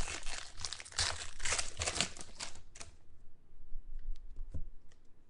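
Trading card pack wrapper crinkling and tearing as the next pack is opened, dense for about the first three seconds, then a few light clicks and taps as the cards are handled.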